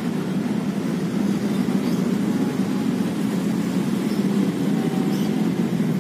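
Steady low rumble of road traffic: cars and buses crossing a road bridge.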